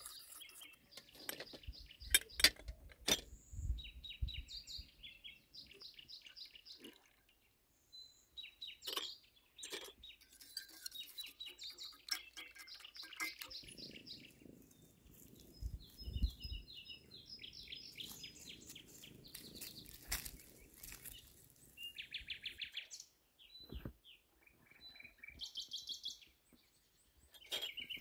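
Small birds chirping and singing in short rapid trills, over and over, with a few sharp clicks and knocks, the loudest about two to three seconds in.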